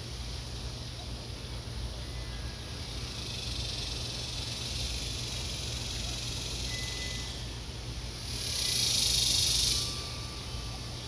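Steady low hum under a constant faint hiss. About eight seconds in, a loud, high hiss swells up and fades away again after about a second and a half.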